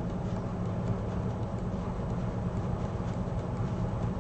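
Steady low machine hum with a faint hiss, unchanging in level.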